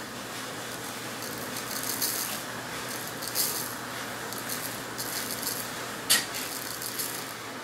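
Active dry yeast granules rattling in a small jar as it is shaken a little at a time over a pocket scale, in several short bursts, with one sharp tap about six seconds in.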